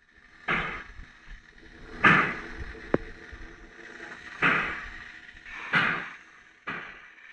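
Steam locomotive exhaust chuffing slowly: five heavy chuffs, each sharp at the start and then fading, at uneven gaps of one to two and a half seconds, with a single sharp click about three seconds in.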